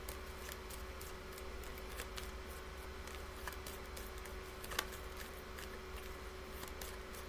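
Quiet room tone: a steady low hum with a few faint, scattered clicks, the clearest about five seconds in.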